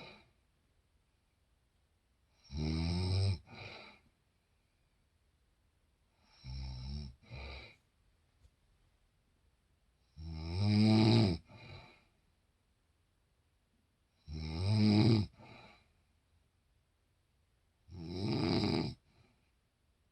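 A woman snoring in her sleep: five loud, buzzy snores about four seconds apart, each about a second long and ending in a shorter snore, with quiet breathing gaps between.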